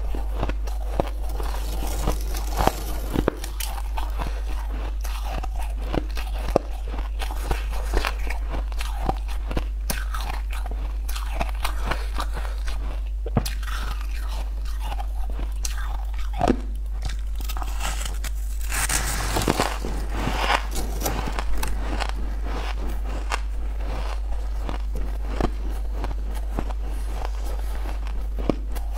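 Frost-covered ice being bitten and crunched up close to a clip-on microphone: a steady run of crisp crunches and chewing, loudest about two-thirds through, over a steady low hum.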